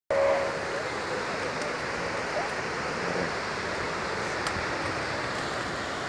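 Steady rushing roar of a waterfall some way off, even and unbroken, with a short tone at the very start.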